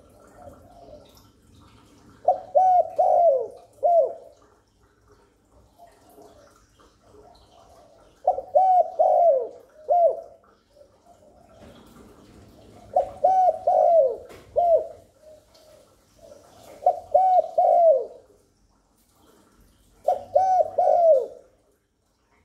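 Spotted dove cooing: five phrases of three or four quick, downward-sliding coos a few seconds apart, with softer low cooing in between.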